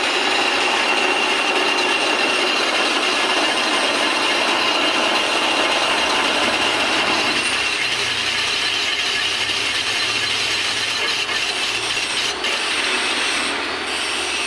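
Metal lathe running steadily: a continuous machine noise with a thin high whine on top, which shifts slightly in tone about halfway through.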